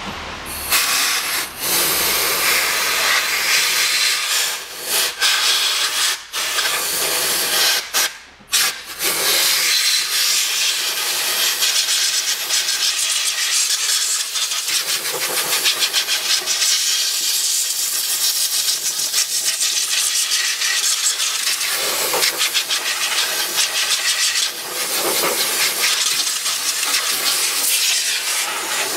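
Compressed-air blow gun hissing as it blows dust and dirt out of an open car air filter housing. There are a few short stops in the first ten seconds, then one long, nearly continuous blast.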